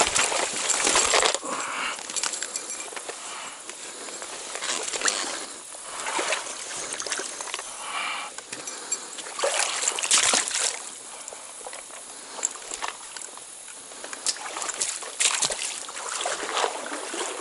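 Legs wading through a shallow trout stream, the water sloshing and splashing in irregular surges every second or two over the stream's steady trickle.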